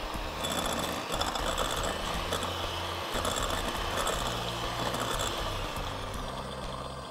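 Electric hand mixer running, its beaters whirring steadily as they cream butter and icing sugar in a glass bowl, easing off slightly near the end.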